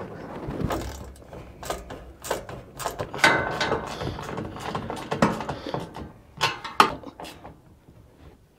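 Hand tools tightening the mounting bolts of a metal roof shelf: irregular metallic clicks and knocks, with a few louder knocks in the middle, dying away near the end.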